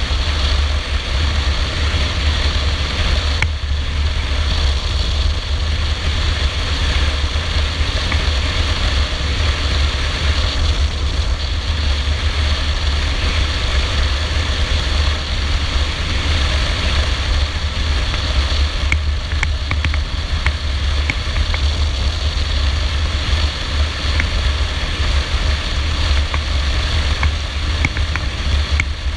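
Stallion Centaur 250 Max motorcycle cruising at steady speed: its engine running under a constant low wind rumble on the helmet-mounted microphone.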